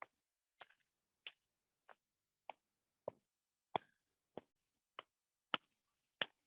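A hand tapping briskly along the arm and shoulder in a self-massage. There are about eleven sharp pats, roughly one every 0.6 seconds, and some land louder than others.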